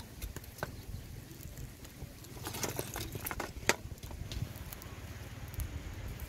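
Small stick fire crackling, with scattered sharp clicks and snaps as sticks are fed into it; a denser run of snaps comes around the middle, over a low steady rumble.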